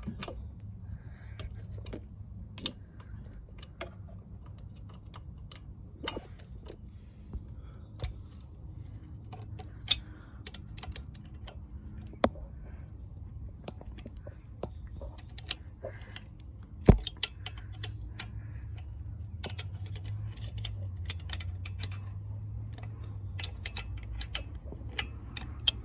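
Irregular small metallic clicks and clinks of hand tools and parts being handled while an ATV carburetor is worked loose, with one sharper knock about two-thirds of the way through, over a steady low hum.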